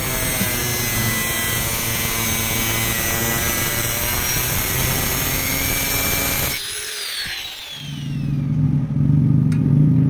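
Angle grinder with a thin cutoff disc cutting through a flat steel bar, a steady high whine. About six and a half seconds in the cut stops and the disc winds down with falling pitch; a louder low-pitched sound comes in near the end.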